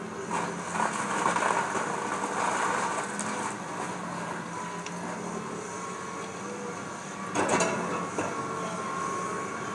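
Excavator engine running steadily while the machine rips into a wood-framed house, with surges of crunching and cracking timber, the loudest about a second in and again around seven and a half seconds.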